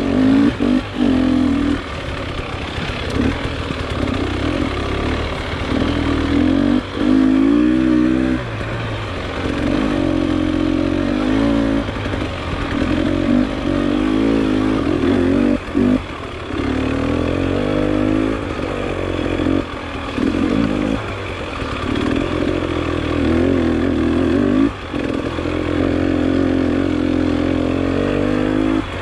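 Dirt bike engine pulling up a steep trail, the throttle opening and closing so that the revs rise and fall over and over, with short cuts where the throttle is chopped.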